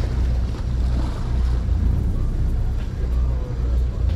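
Sportfishing boat's engine running as the boat motors along, a low, uneven rumble, with wind buffeting the microphone.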